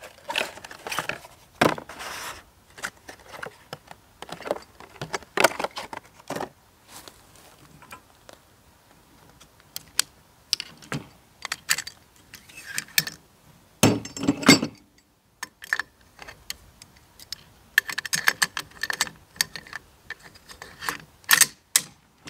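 AR-15 bolt carrier group and rifle parts being handled and worked by hand: irregular metal clicks, clacks and sliding, with a louder cluster of clacks about 14 seconds in.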